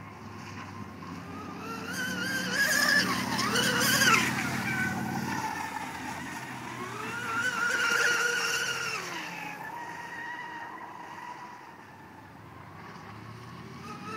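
Aeromarine Jesse James 21 RC speedboat running at speed on a Leopard 4074 brushless motor and three-blade X440 propeller: a high electric whine that climbs and falls in pitch. It grows loudest as the boat passes about three to four seconds in and again about eight seconds in, then fades.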